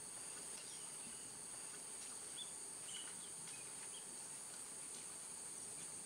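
Steady high-pitched insect chorus, with a few short, faint chirps around the middle.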